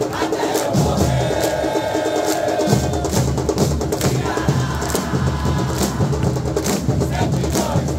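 Football supporters' group chanting a song in unison in the stands, backed by its drum section (bateria) beating a steady rhythm.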